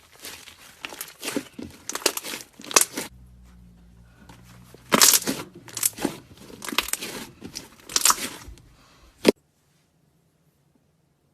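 Slime being worked by hand, crackling and popping in irregular bursts, then stopping abruptly near the end.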